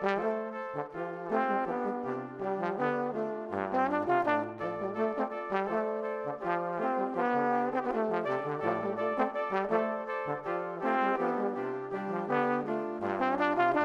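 Instrumental music with a brass-sounding melody in short stepping notes over a moving bass line.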